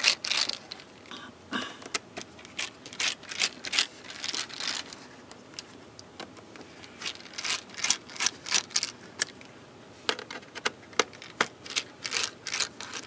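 Precision screwdriver backing the screws out of a MacBook Pro's metal bottom case: runs of quick, sharp high ticks and small scrapes, with short pauses between them.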